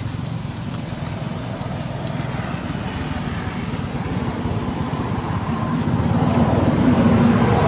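Road traffic noise: a passing motor vehicle's engine and tyres, a steady hum that grows louder over the last couple of seconds as the vehicle draws near.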